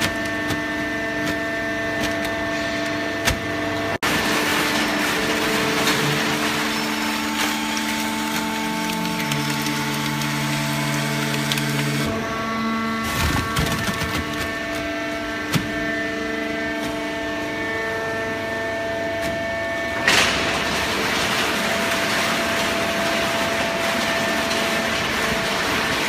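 Fully automatic horizontal hydraulic cardboard baler running: a steady mechanical hum and whine from its hydraulic drive, made of several steady tones that change pitch a few times. A sudden louder burst comes near the end.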